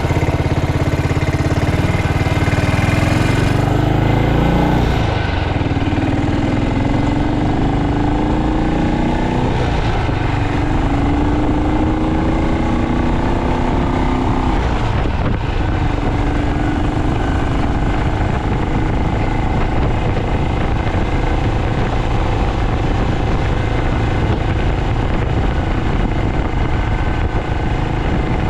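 BSA Starfire's swapped-in B44 single-cylinder engine running, with its revs climbing in several separate rises over the first fifteen seconds, then holding steady.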